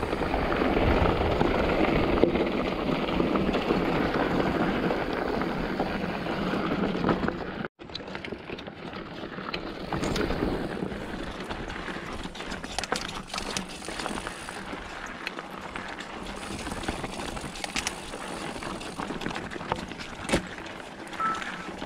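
2021 Polygon Siskiu N7 mountain bike being ridden on a dirt trail: a loud rush of wind on the camera microphone and tyre rumble for the first third, then a quieter run of tyre noise with scattered clicks and rattles from the bike.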